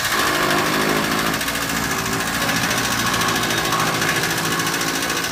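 Electric chaff cutter running under load, its blades chopping green fodder being fed in by hand, a steady fast whirring chatter.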